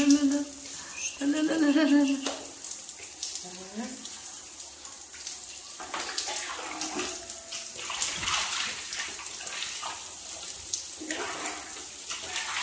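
Handheld shower spray hissing steadily as water runs onto a puppy's coat and the tiled shower floor. A voice is heard briefly in the first two seconds.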